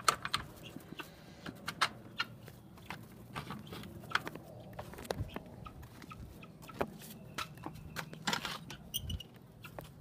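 Irregular light knocks, taps and scrapes from a wooden chicken coop and its wire mesh being handled.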